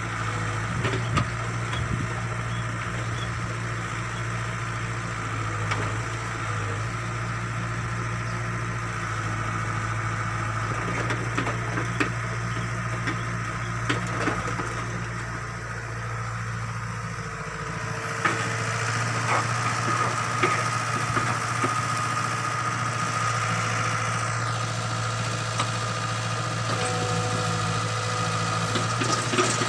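Backhoe's diesel engine running steadily under hydraulic work, with scattered short knocks from the digging gear. About two-thirds of the way through, the engine's low hum drops away and a higher steady tone comes forward.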